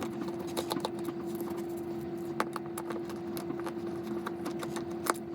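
Small irregular clicks and scrapes from taking apart a plastic CO2 monitor, as its batteries and small Torx screws are removed with a precision screwdriver, over a steady hum.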